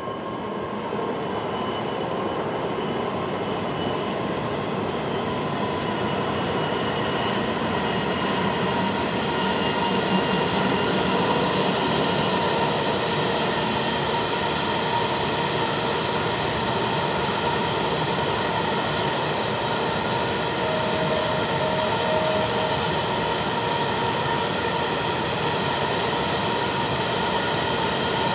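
Empty iron-ore train passing behind a pair of IORE electric locomotives: the locomotives and then a long string of empty ore wagons rolling by on the rails. The noise swells over the first few seconds and then holds steady, with several steady high-pitched tones over it.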